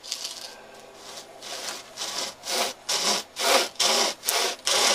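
Pocket chain saw, a flexible saw chain pulled by two strap handles, rasping through a dead tree limb in quick alternating strokes. The strokes start faintly about a second in and grow louder and steadier, about two a second.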